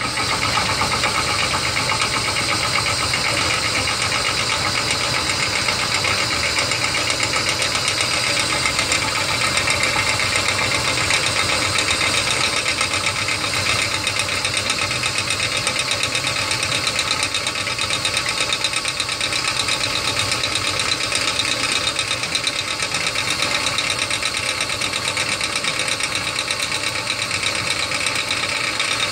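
Ryobi 18-volt cordless drill running steadily at part trigger, spinning a rusted 5/16-inch carriage bolt against a hand-held hacksaw blade. The motor and gearbox whine and the blade rasps through the bolt's threads. The drill starts right at the beginning. At this slower speed the blade is cutting steadily, whereas running it too fast made the bolt jump around.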